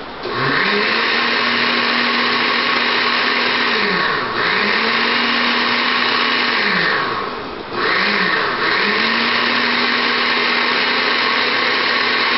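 Countertop blender running on a nearly smooth mix of aloe vera, honey and water, started and stopped in pulses: the motor spins up, runs steadily, drops off briefly about four seconds in, runs again, winds down near the middle, gives a short blip, then spins up and runs on.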